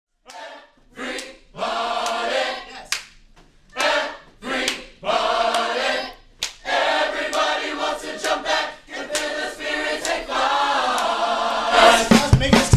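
A large group of high-school choir students singing together, first in short phrases broken by pauses, then more continuously. Just before the end, recorded music with a strong bass line cuts in.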